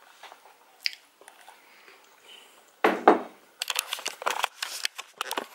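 Handling noise from a hand-held camera being swung around, with a louder knock about three seconds in and a run of quick clicks and knocks after it.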